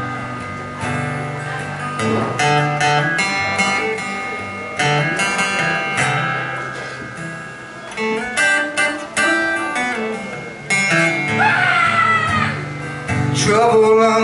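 Acoustic guitar played solo in an instrumental break of a song, a mix of picked single notes and strummed chords. A man's voice comes back in singing near the end.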